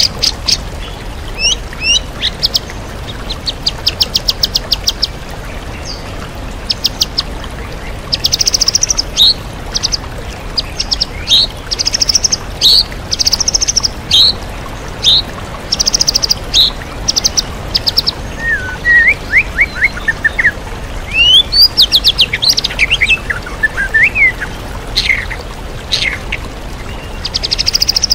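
White-rumped shama (murai batu) singing a varied song of rapid high trills, chirps and sweeping whistled phrases, over the steady rush of a waterfall.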